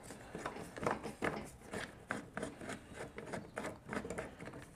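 Hand screwdriver turning a screw out of a plastic mower body panel, the screw held by a locking nut underneath: a string of light, irregular clicks and scraping rubs.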